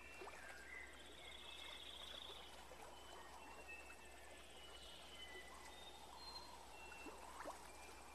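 Faint outdoor ambience: a low, steady natural background with scattered short, high bird chirps and a brief buzzy trill about a second in.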